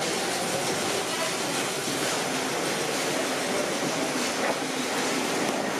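Steady, even running noise of factory machinery.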